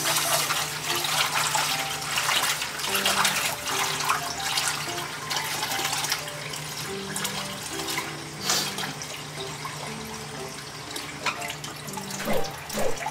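Water running from a kitchen tap into the sink, splashing unevenly, over soft background music.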